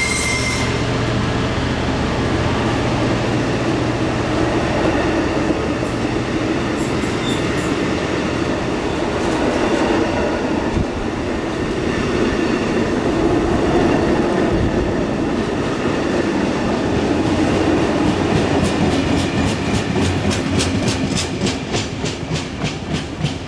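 A train of Network Rail engineering vehicles (on-track track machines) rolling past, with a steady rumble and rattle of steel wheels on rail. Near the end it turns into a rhythmic clickety-clack of wheels over rail joints, the clicks spacing out and fading as the last vehicles go away.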